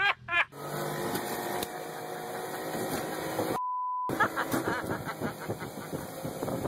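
A few short high yelps right at the start, then a boat's motor running, interrupted about three and a half seconds in by a half-second steady censor beep covering a word.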